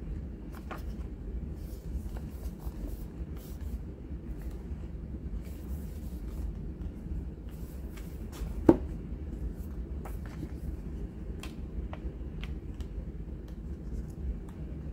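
An album photobook being handled and its pages flipped: soft paper rustles and light clicks over a low steady hum, with one sharp knock about nine seconds in.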